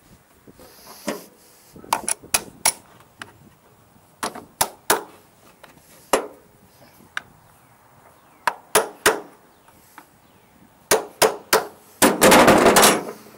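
Metal tools clanking and clinking against metal lawn mower parts being worked on by hand: a string of sharp, irregular knocks, some ringing briefly, then a dense rattling burst of about a second near the end.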